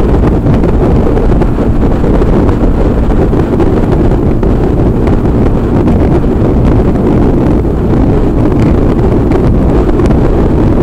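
Steady, heavy wind noise buffeting the microphone of a camera on a Yamaha XT350 motorcycle riding at highway speed, mostly covering the bike's own sound.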